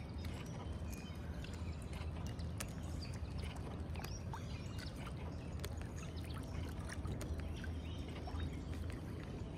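Small waves lapping and splashing against the side of a small boat, many irregular little splashes over a steady low rumble.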